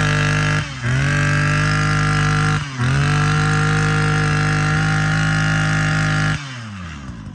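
Two-stroke brush cutter engine, just started, running at high revs. The revs dip briefly twice and climb back, and near the end the throttle is let off and it falls to idle.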